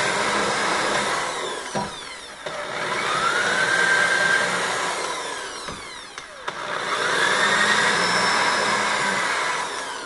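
Electric drill boring shallow pilot holes into wood, the motor whining up to speed and running a few seconds at a time, three runs with brief stops between.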